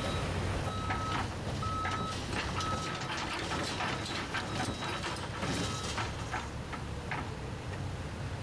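A vehicle's reversing alarm beeping, one steady tone about once a second, over a running engine, with scattered clanks and knocks. The beeping stops about six seconds in.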